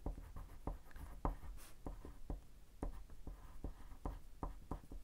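A wax crayon scribbled back and forth on paper, making a faint, quick scratching at about five strokes a second as a colour swatch is laid down.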